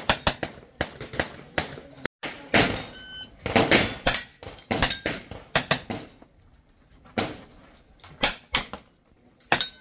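Pistol shots fired in quick strings and pairs on a practical shooting course, with a short electronic shot-timer beep about three seconds in, the start signal for the stage.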